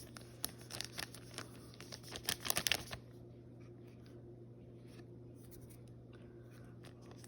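Plastic crinkling and light scraping as a trading card is slid into a protective plastic sleeve: a run of small crackles and clicks for about three seconds, then only a faint steady low hum.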